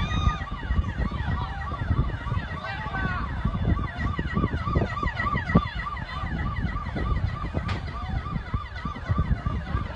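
Several emergency vehicle sirens sounding together, one a fast yelp rising and falling about three times a second with others sliding across it, over a steady low rumble.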